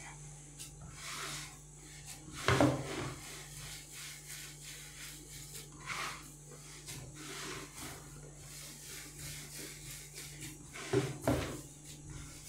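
Semolina kesra dough being kneaded and worked by hand: a soft rubbing, with a few short louder knocks about two and a half seconds in, around six seconds in and near the end.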